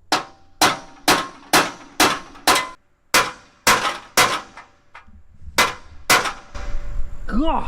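A big hammer striking a steel punch, about eleven clanging metal-on-metal blows at roughly two a second, with a short pause partway through.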